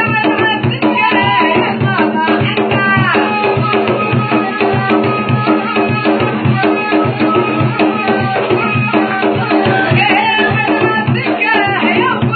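Music: a gasba reed flute and a voice over a steady drum beat.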